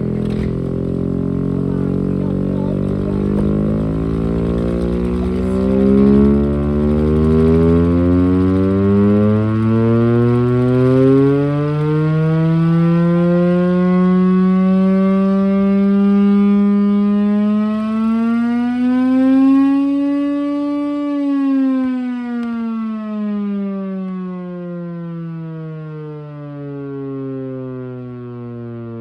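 Chrysler air raid siren, driven by a V8 engine, sounding a loud, slowly rising tone that climbs for about twenty seconds. It then falls away steadily through the last part. A low engine rumble sits beneath the tone in the first half.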